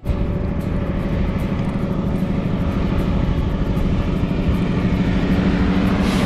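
Wind buffeting the microphone with a steady low hum from the tyres, while a loaded gravel bike is ridden.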